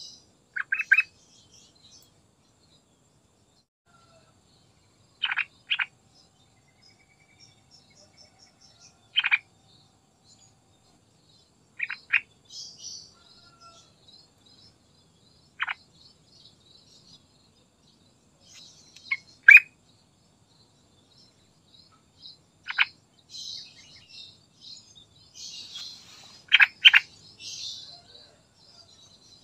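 Yellow-vented bulbul (trucukan) giving short, sharp call notes every few seconds, often in quick pairs, over faint high-pitched chirping in the background.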